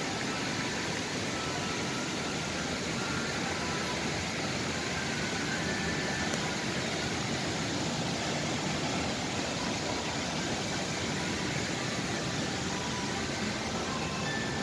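Steady, even outdoor city background noise at a constant level, with no distinct events.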